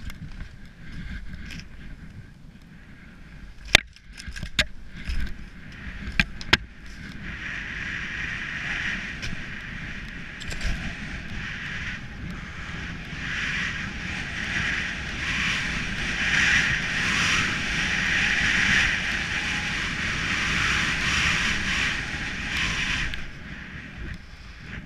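Skis running through powder snow with a steady rushing hiss, which builds from about a quarter of the way in, is loudest past the middle and drops off sharply near the end. A few sharp knocks and clicks come just before the hiss starts.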